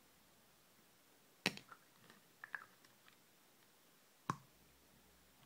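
Clicks and light ticks of a CK One glass perfume bottle being handled: a sharp click about a second and a half in, a few soft ticks after it, and a second sharp click near the end.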